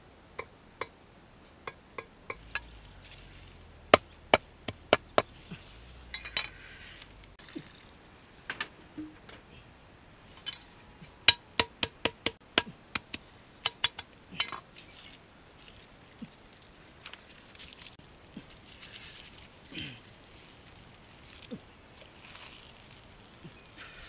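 Sharp clinks and knocks on a cooking pot over a wood fire, with softer rustling and crackling in between. They come in bursts of several quick strikes about four seconds in and again around eleven to fourteen seconds.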